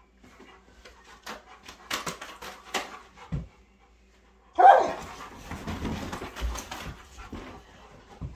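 A large dog play-fighting with a gloved hand on a bed, full of play energy: scattered sharp clicks and scuffling, then one loud bark about four and a half seconds in, followed by rustling of the bedding as the dog moves about.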